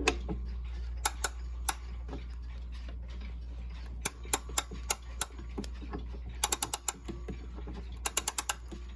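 Ratchet clicks of a Hermle 341-020 clock movement being hand-wound slowly with a key: the click (pawl) snaps over the mainspring ratchet wheel in uneven groups, first a few single clicks, then quick runs of about six.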